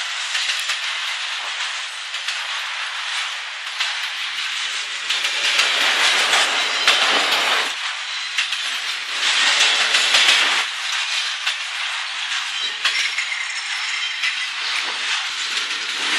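Intermodal freight train of truck trailers on flatcars rolling past: a steady rush of steel wheels on rail with faint clicks, swelling louder twice, about five seconds in and again near ten seconds.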